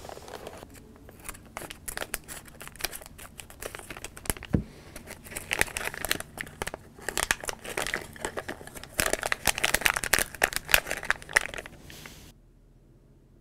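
Crinkling and tearing of a foil-plastic Lego minifigure blind bag being squeezed and ripped open, a dense run of crackles that grows louder in two spells, with one dull thump about four and a half seconds in. The sound cuts off suddenly near the end.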